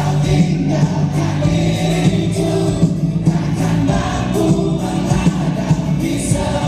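Live rock band playing a song through a large PA: electric guitar, keyboards and drums, with singing over the top.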